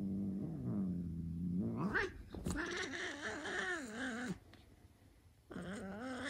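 Annoyed black cat growling low and steady, then rising into a wavering yowl of about two seconds, with a second yowl near the end: an angry warning telling the other cat to stop.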